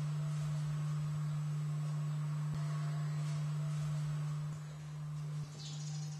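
A steady low-pitched hum, easing slightly a little past the middle.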